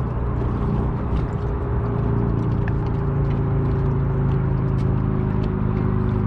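Boat's outboard motor running steadily, a low even hum with a few faint clicks over it.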